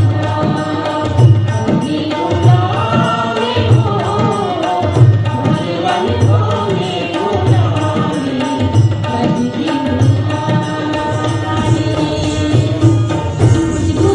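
Indian folk song: a woman singing a wavering melody over a sustained harmonium and tabla, whose deep bass strokes fall in a steady beat a little over one second apart.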